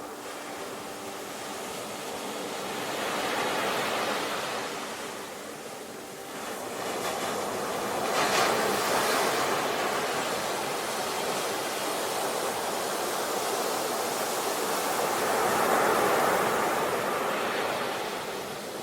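Sea waves breaking and washing onto a shore in slow swells that rise and fall. One breaks more sharply about eight seconds in, and another surge builds near the end.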